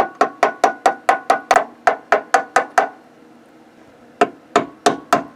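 Hammer tapping new door-hinge bushings into a 2003 Chevy Suburban's driver's door hinge: sharp, ringing metal taps, about a dozen at roughly four a second, a pause, then five more near the end.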